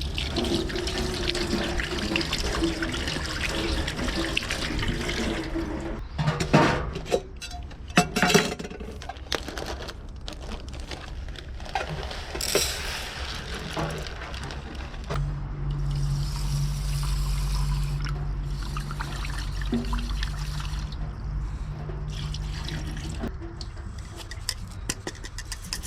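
Water running from a tap into a container, with a few knocks of handling. A steady low hum sounds for several seconds later on.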